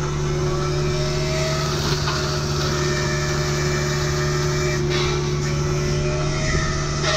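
Kubota U55-4 mini excavator's diesel engine running steadily, with a whine that rises and falls in pitch from the hydraulics driving an MTL XC5 brush cutter.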